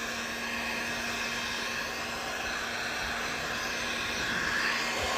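Hot-air blower running steadily: a constant rush of air with a steady low hum from its motor, heating the iPad's screen adhesive to soften it before prying.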